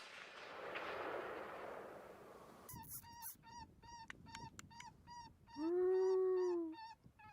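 The echo of a rifle shot rolling away. Then a coyote yips rapidly, about three or four yips a second, and breaks into a long, steady whine near the end.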